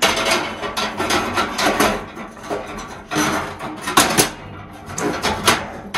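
Sauna heater stones clacking and scraping against one another and the steel stone compartment of a Harvia Compact BC35 electric heater as they are set in by hand, a continuous run of stony knocks.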